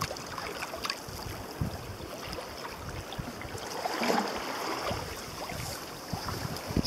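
Water rushing and splashing along the hull of a sea kayak under sail through choppy water, with wind buffeting the microphone in gusts. A louder wash of water comes about four seconds in.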